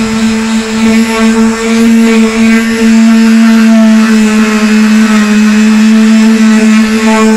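Black & Decker electric palm sander running at a steady, even pitch, its pad pressed against a car's painted steel body panel, sanding off chipped paint.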